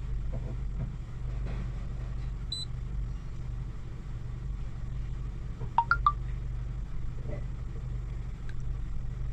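Honda Accord engine idling, heard from inside the cabin as a steady low hum; the car is one the mechanic says is misfiring heavily. A short electronic beep sounds about two and a half seconds in, and a few quick chirps come about six seconds in.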